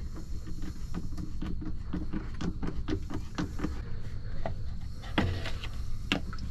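Rapid clicking of a screwdriver loosening a worm-drive hose clip (Jubilee clip) on the raw-water hose between the strainer and the water pump, followed by two louder knocks as the hose is worked off.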